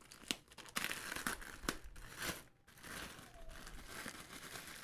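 Plastic wrapping being crinkled and pulled off a new Bluetooth speaker, an irregular crackling with a few sharp snaps.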